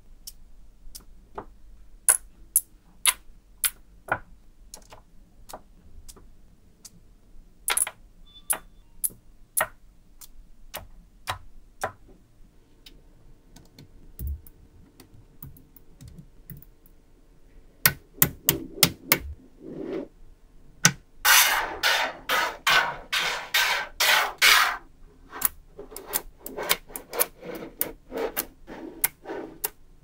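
Small magnetic balls clicking and snapping together as blocks of them are set down and joined: sharp single clicks at first, then a quick run of rattling clicks about two-thirds of the way through.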